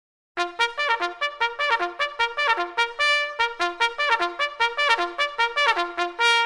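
Trumpet playing a fast fanfare of short notes, several a second, starting a moment in; it is really noisy.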